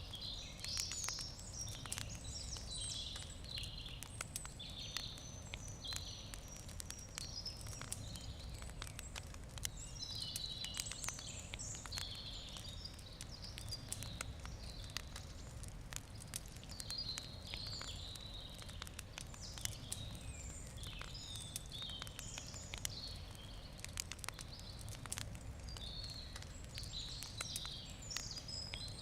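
Wood fire crackling with scattered sharp pops, while small birds keep up a chirping, trilling song in the background.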